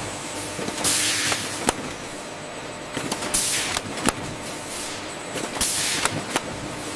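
Poultry processing machinery running with a steady hum, giving three hissing air or spray blasts about two and a half seconds apart, with sharp mechanical clicks and knocks in between.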